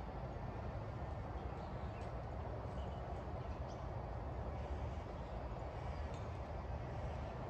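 Steady outdoor background noise with a low rumble and a few faint, short high chirps.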